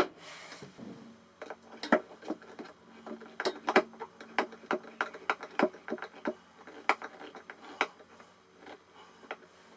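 Irregular small clicks and taps of metal hardware and screws being handled and fitted on a wooden tool chest, with a sharp knock at the very start.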